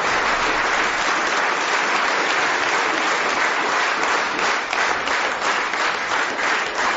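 Audience applauding, the clapping thinning out into separate claps over the last couple of seconds.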